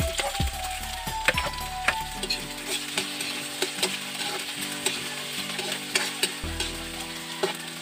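Tomato slices frying in garlic and oil in a wok, sizzling, while a metal spatula stirs and scrapes them around the pan with sharp clicks of metal on the wok.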